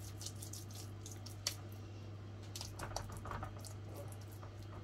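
Faint wet squishing and small clicks of hands rubbing a thick spice paste over a whole fish on a buttered baking tray, with one sharper click about a second and a half in. A steady low hum runs underneath.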